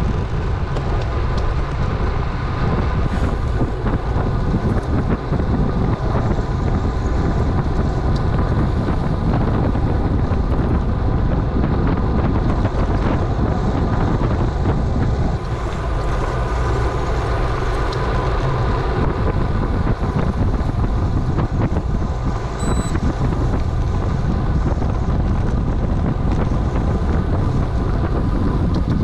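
Wind buffeting the microphone of a camera on a moving bicycle: a steady, loud rumble at riding speed.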